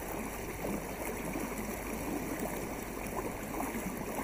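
Water rippling and trickling steadily along the hull of a canoe gliding over a lake, with small irregular splashes.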